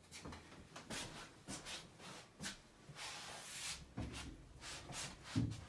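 Scuffing and rubbing handling noise from a handheld phone being moved about while someone walks, with a couple of soft low thumps near the end.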